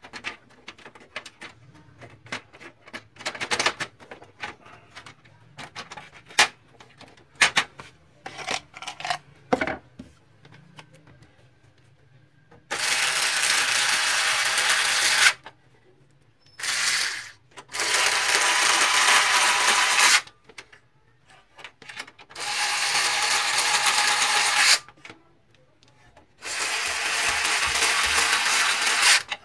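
Plastic printer panels and parts clicking and knocking as the duplexer tray and back cover of an HP LaserJet 1320 are handled and fitted. In the second half come four steady stretches of mechanical noise, each about two and a half seconds long, plus one short burst.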